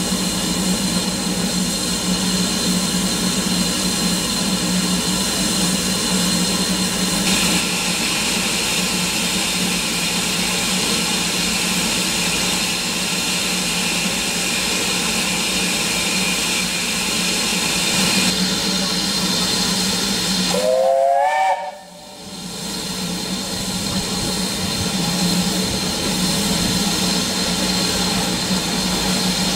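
BR Standard Class 4 2-6-0 steam locomotive standing with a steady hiss of steam. A higher hiss joins in from about seven to eighteen seconds in. About twenty-one seconds in a brief rising tone sounds, the sound drops away sharply for a moment, and then the hiss returns.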